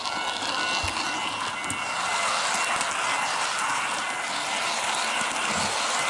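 HO-scale model train with an onboard camera car running along the track: a steady rolling rush of small wheels on rails and motor noise, with a faint whine that fades about two seconds in.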